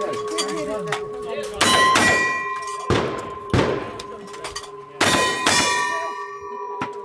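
Rifle shots at hanging steel targets, about five sharp reports in quick succession. Each hit sets the steel ringing with a long bell-like clang that carries on between shots.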